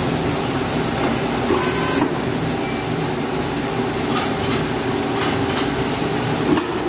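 Injection molding machine and its gantry take-out robot running, a steady machine hum and clatter, with a short hiss about a second and a half in and a few sharp clicks near the middle.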